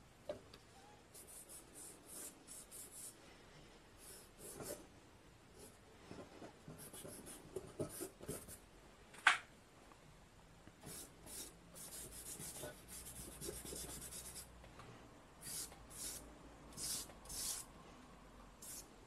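Stick of charcoal scratching across drawing paper in short strokes, some in quick runs, with one sharp tick about nine seconds in.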